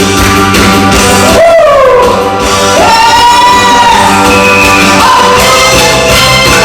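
Korean trot song: a vocalist sings long, wavering held notes that slide between pitches over a band backing with a steady beat.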